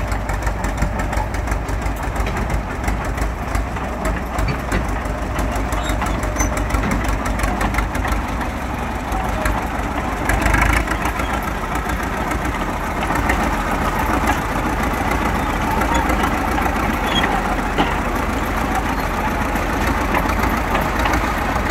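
Diesel engine of a ChTZ T-100M crawler bulldozer running steadily as the machine drives along on its tracks, with a brief louder surge about halfway through.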